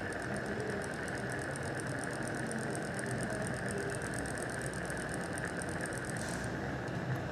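Threaded bone expander being driven into the split alveolar ridge: a rapid, even mechanical ticking, about ten a second, that stops about six and a half seconds in. A steady hiss runs underneath.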